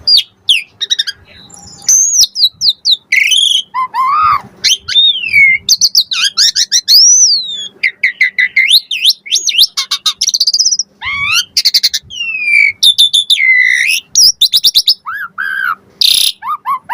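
Asian pied starling (jalak suren) singing a long, varied song of loud whistles that slide up and down, broken by quick runs of short chattering notes and a harsh rasping call near the end. The song is the 'full isian' kind, packed with learned phrases.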